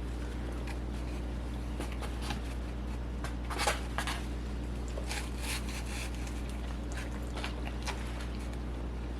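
A person eating a tortilla wrap: scattered soft chewing and rustling sounds over a steady low hum.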